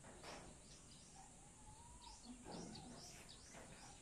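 Quiet room tone with faint birds chirping in the background: many short high chirps and a thin wavering whistle about a second in, plus a couple of soft rustles.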